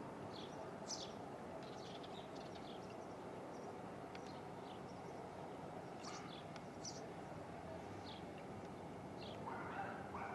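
Outdoor ambience: small birds chirp in short high notes now and then over a steady background hum.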